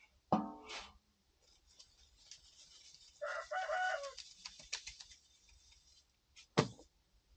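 A rooster crows once, briefly, about three seconds in. A knock with a short ring comes just after the start, and a sharper, louder knock about six and a half seconds in.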